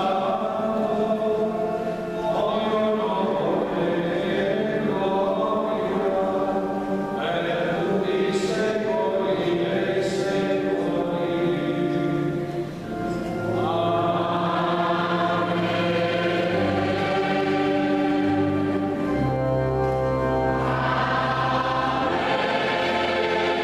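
Choir singing a liturgical chant in a reverberant church, over long held low notes that change in steps, as from an organ.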